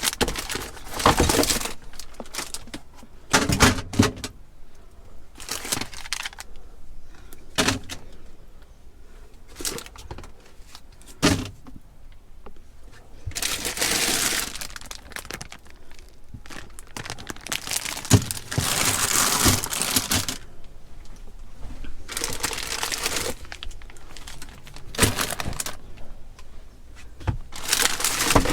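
Groceries being packed back into a fridge: plastic packaging crinkling and rustling in several stretches, between irregular knocks and clatters as items are set onto the shelves.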